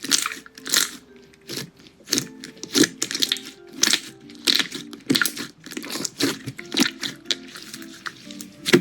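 Crunchy slime being handled in a slime video, giving repeated sharp crackling crunches several times a second, over soft background music.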